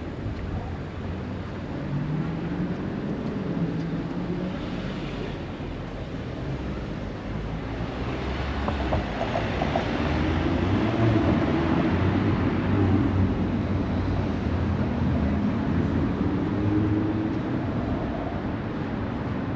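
Steady city traffic rumble with the drone of a passing vehicle's motor, its pitch slowly rising and falling, loudest about halfway through.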